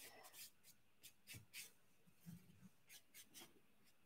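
Faint, short scratches of a paintbrush's bristles stroking and dabbing on watercolour paper, several soft strokes spaced irregularly.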